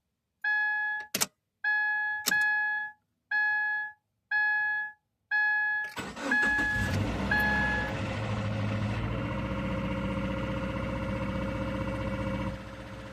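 A car warning chime sounds about once a second, with two sharp clicks in among the chimes. About six seconds in, a 2015 Subaru Impreza's flat-four engine cranks and starts from cold and settles into a steady fast idle. The engine sound drops somewhat near the end.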